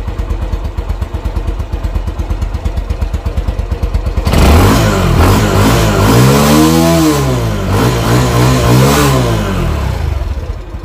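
A Super Power Cheetah 110cc motorcycle's single-cylinder four-stroke engine idling. About four seconds in, the throttle is blipped twice, each rev rising and then falling in pitch, and the engine settles back to idle near the end.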